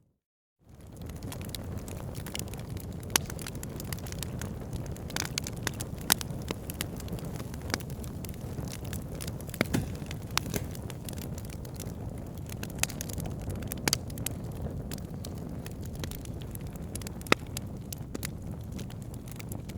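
Wood fire crackling in a fireplace: a steady low rumble and hiss of flames with scattered sharp crackles and a handful of louder pops. The sound drops out for a moment at the very start, then fades back in.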